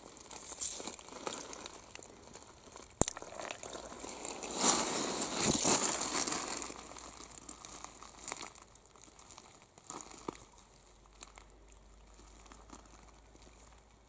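Crunching and scraping of wet gravel, mud and leaves as a hand digs out a stone and handles it, with a sharp click about three seconds in and a louder stretch of scraping around the middle; it turns quieter, with only scattered small clicks, in the second half.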